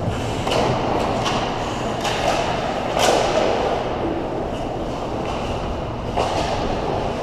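Ice hockey play close to the goal: skates scraping and carving the ice under a steady rink rumble, with several sharp clacks and thuds of sticks and puck. The loudest clack comes about three seconds in.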